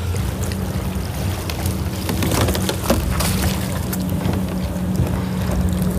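A steady low hum from the boat's trolling motor, which holds the boat in place, over wind and lapping water. A few knocks and splashes come in the middle as a sheepshead is scooped up in a landing net.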